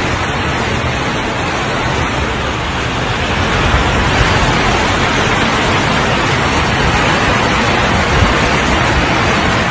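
Heavy rain and floodwater making a loud, steady rushing hiss that grows a little louder about three and a half seconds in.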